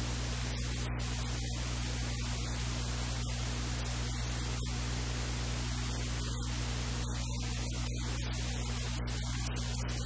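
Steady low electrical hum with a constant hiss over it; nothing else stands out.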